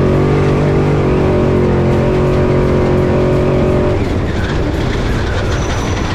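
Desert race truck's engine heard from inside the cab, running at steady high revs. About four seconds in, the even engine note breaks up into a rougher, wavering sound.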